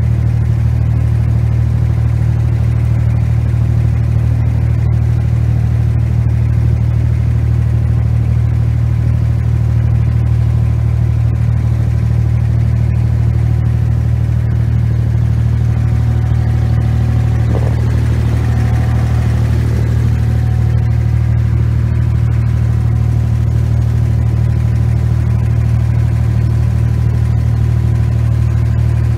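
A boat's engine running steadily under way: a loud, even low drone that does not change in pitch or level.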